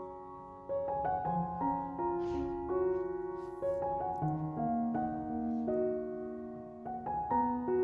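Background piano music: a slow melody of struck notes over held chords.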